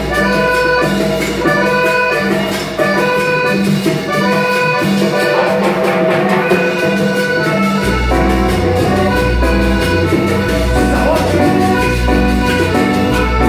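Live dance band playing an accordion medley, the accordion's sustained notes over a driving bass; the bass drops out for a few seconds and comes back strongly about eight seconds in.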